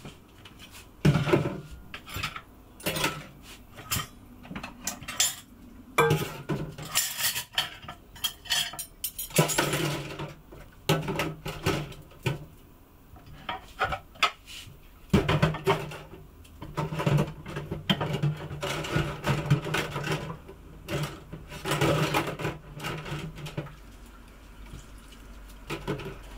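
Dishes, pots and cutlery clattering and clinking, in irregular knocks and scrapes throughout.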